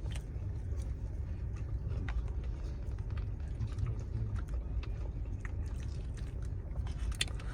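Chewing and small clicks from eating boneless chicken wings, over a steady low rumble inside a parked car's cabin.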